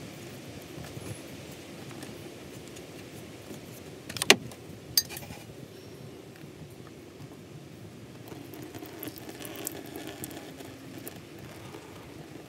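Pliers working a spin-on oil filter loose: two sharp metal clicks about four and five seconds in, with light clinking and handling noise around them.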